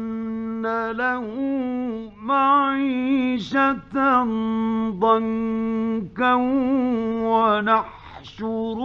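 A man reciting the Quran in the slow melodic mujawwad style, holding long ornamented notes with wavering, gliding pitch, broken by short pauses. It is an old radio recording with a faint steady hum beneath the voice.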